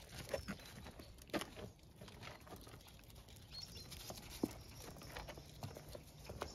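Footsteps and small dogs' paws on a gravel path: scattered, irregular crunches and taps, with a sharper one about a second and a half in and another past four seconds.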